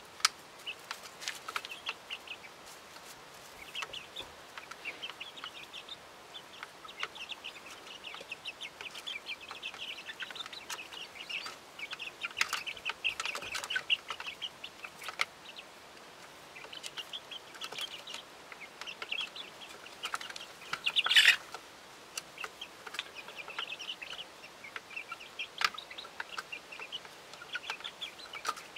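Young chickens cheeping and trilling softly as they peck spaghetti from a trough, with light pecking clicks among the calls. One louder, sharper sound stands out about two-thirds of the way through.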